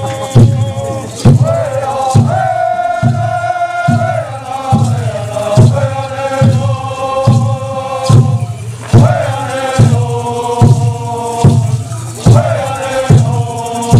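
Native American animal dance song: a group of singers chanting together over a steady drum beat, a little more than one beat a second.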